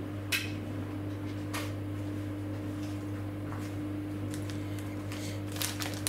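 Samsung WW10N645RBW front-loading washing machine spinning: a steady low hum with a thin steady higher tone, with no shaking or knocking now that its levelling feet have been adjusted. A few short clicks come through, one about a third of a second in and a couple near the end.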